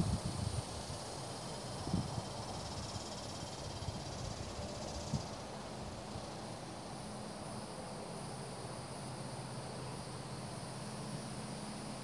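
Faint outdoor ambience: a steady high chirring of insects in the trees over a soft hiss, with a light knock about two seconds in and another near five seconds.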